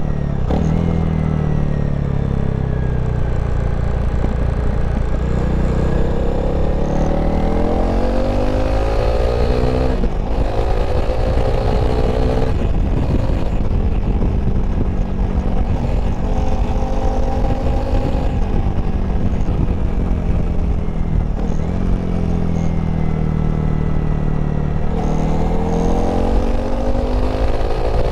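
Honda CRF300L's single-cylinder engine running under riding, its pitch rising and falling several times as it accelerates and eases off, with short breaks where gears change.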